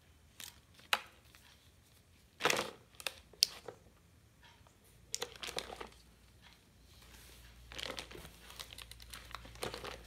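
Clear plastic packaging crinkling and rustling in scattered bouts, with a few sharp ticks, as hands handle a coiled HDMI cable lying on it; loudest about two and a half seconds in.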